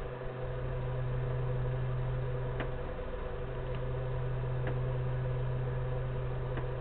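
Steady low electrical hum with an even hiss, and a few faint ticks spaced about a second apart.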